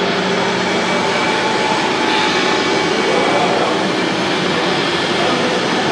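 Steady mechanical running noise from radio-controlled scale model trucks, with no single sudden event.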